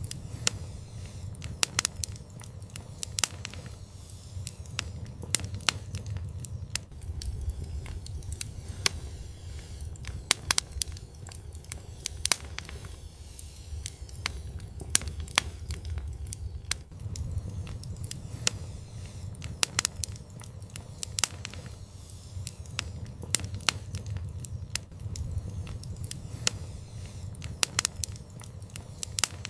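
Wood fire burning, with a low steady rumble of the flames and frequent sharp, irregular crackles and pops.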